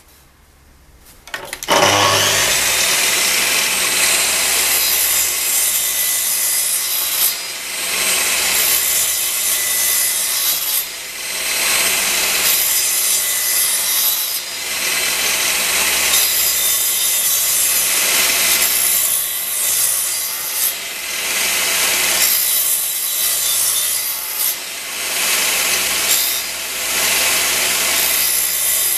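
Sliding compound mitre saw starting up about a second and a half in, then running on with its motor whining steadily. Its blade is brought down again and again to make a row of depth-limited parallel trenching cuts through softwood, and the cutting noise eases briefly between passes.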